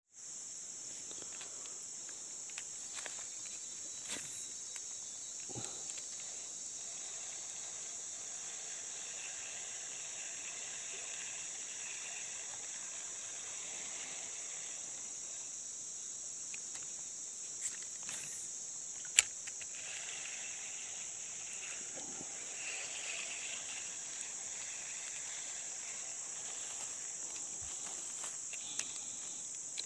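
Steady, high-pitched drone of insects in the forest. A few faint ticks are scattered through it, and a single sharp click comes about two-thirds of the way in.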